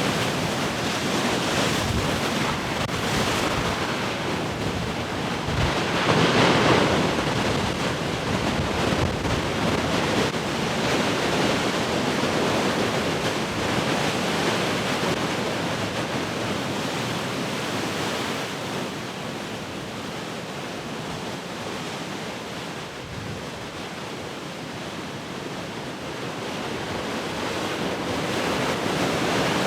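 Heavy ocean surf: large waves breaking and washing in continuously, with one big crash about six seconds in, easing in the second half, then building again near the end.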